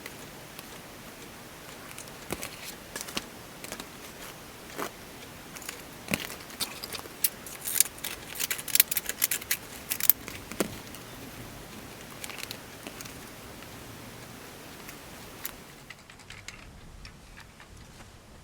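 Paper scraps being handled for collage: irregular crinkles, rustles and sharp clicks, with a dense flurry in the middle, over a steady background hiss that drops away near the end.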